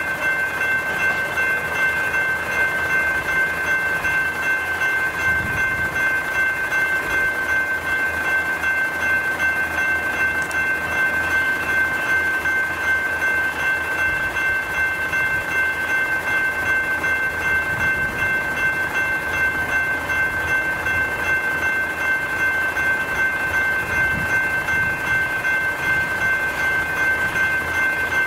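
Electronic level-crossing bells (General Signals type) ringing continuously in a rapid, steady dinging: the crossing is activated, warning of an approaching train.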